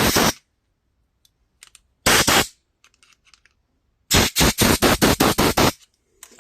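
Compressed air blown in short hissing blasts through the jets and passages of a Kohler small-engine carburetor to clear out dirt. There is one blast at the start, another about two seconds in, then a quick string of about nine short blasts.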